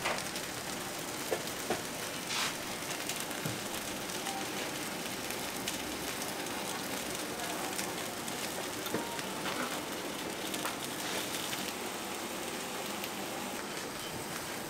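Steady sizzling and crackling of batter cooking in hot bungeoppang (fish-shaped bread) molds, with a few light knocks.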